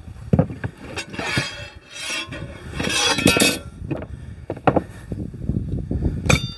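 Wooden slats and tools being handled on a workbench: a string of knocks and light clinks, with two short scraping or rustling sounds, about a second in and about three seconds in.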